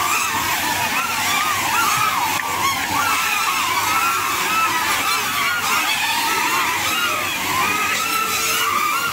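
Several caged drone-soccer ball drones flying at once, a dense whine of many propellers with pitches rising and falling quickly as their motors speed up and slow down.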